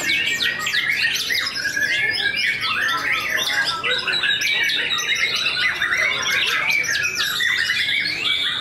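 White-rumped shama (murai batu) singing in contest: a dense, unbroken stream of quick chirps, whistles and harsh notes, with several birds' songs overlapping.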